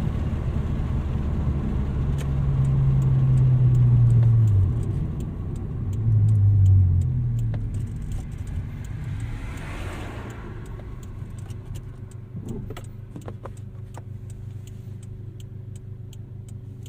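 Toyota Celica's engine running on the road, its note rising and falling over the first several seconds, then settling after about eight seconds into a quieter steady hum with scattered light clicks.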